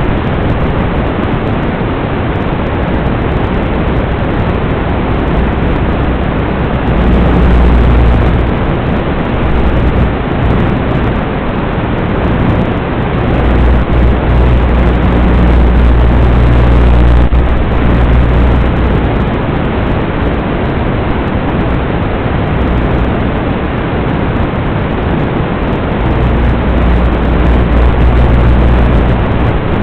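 Rushing wind noise over the onboard camera microphone of a small electric flying wing in flight, steady throughout, with low rumbles swelling and fading several times as it banks and turns.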